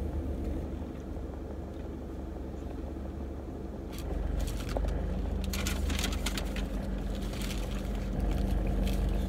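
Low steady rumble of a car idling, heard inside the cabin, growing a little louder about four seconds in. From then on it is joined by close, crackly eating sounds.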